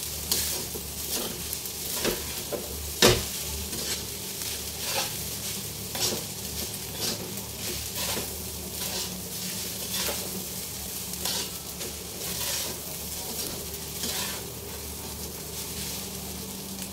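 Fried rice sizzling in a steel wok while a metal spatula scrapes and knocks against the pan in quick, irregular strokes, with one louder clank about three seconds in.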